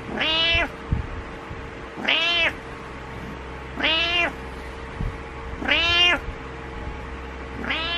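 Orange-and-white domestic cat meowing over and over, about one meow every two seconds, each call rising and then falling in pitch; a fifth meow begins right at the end.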